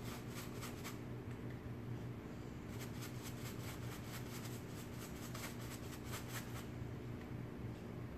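Stiff, cut-down stubby paintbrush dabbing paint into upholstery fabric, quick repeated strokes at about four a second in two runs with a pause between. A steady low hum underneath.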